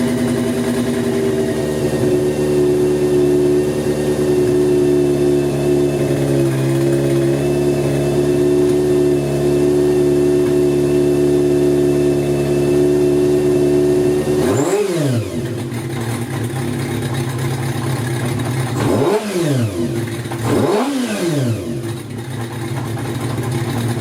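Kawasaki Zephyr inline-four motorcycle engine on racing carburettors running steadily at raised revs, then revved in three quick throttle blips in the last third, each rising and falling away.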